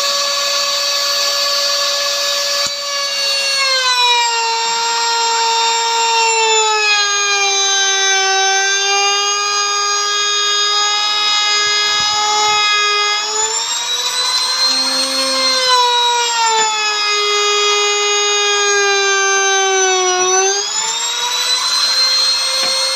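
Electric wood router running with a high whine. Its pitch sags and recovers several times as the cutting load on the bit rises and eases.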